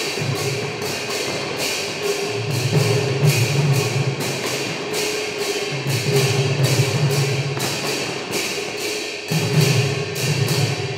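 Khol barrel drums played together with small hand cymbals, a fast, dense rhythm of sharp strikes several times a second over deeper drum beats that swell and drop back in phrases.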